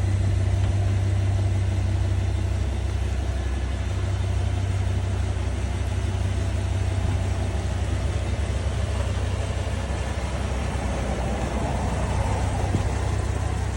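A 2021 GMC Yukon Denali running, with a steady low hum; the owner calls this a strange noise.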